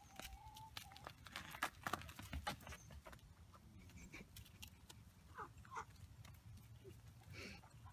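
Faint, brief animal calls, two short ones about five and a half seconds in, among scattered clicks and knocks.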